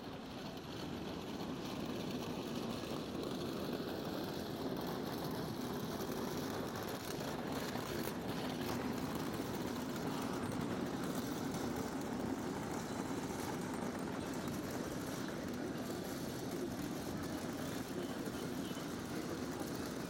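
Steady city street ambience: a continuous low hum of distant traffic and urban noise, with no single sound standing out.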